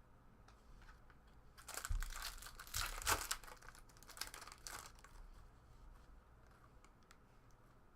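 Foil trading-card pack wrapper being torn open and crinkled by hand, a run of crackling rustles lasting about three seconds that trails off.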